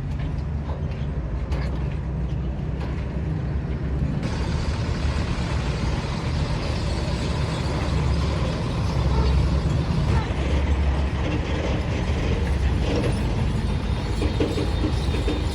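A heavy engine running steadily, with mechanical clattering over a low rumble; a higher, hissing noise joins about four seconds in.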